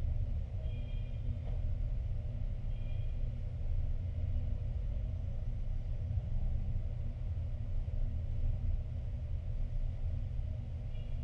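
Steady low background rumble, with a few faint, short high chirps about a second in, again around three seconds, and near the end.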